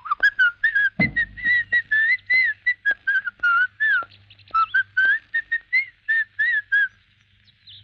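A person whistling a jaunty tune in short, sliding notes, with a single thump about a second in.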